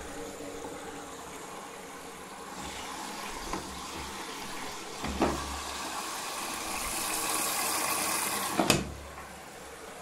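Candy GO 510 washing machine filling for its first rinse: water hissing in through the detergent drawer, swelling over several seconds. There is a thump about five seconds in, and a sharp knock near the end as the inflow cuts off.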